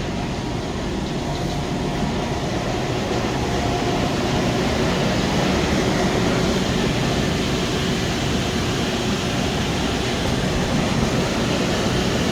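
Steady loud rumble of running steam-boiler-room machinery, with a faint steady hum over it.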